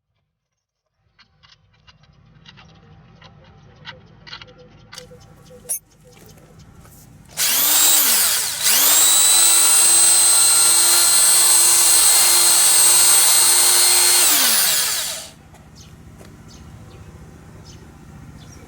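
Ryobi corded electric drill, freshly regreased, run on the trigger: a few light handling clicks, then the motor whirs up to speed, drops out briefly and spins up again. It runs steadily for about six seconds, then winds down when released.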